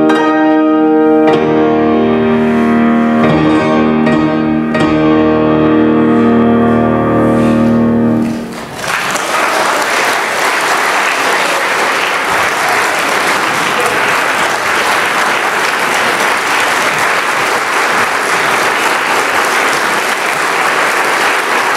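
Grand piano playing the closing sustained chords of a piece, which die away about eight seconds in. An audience then applauds steadily.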